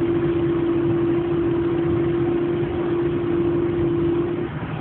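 Inside a Citroën AX cabin at motorway speed, a steady whine held at one pitch sounds over the engine and road noise, with the throttle released. It drops out briefly near the end. The owner does not know its cause; he places it at the front right, and says it usually goes away below 80 km/h and is not the clutch.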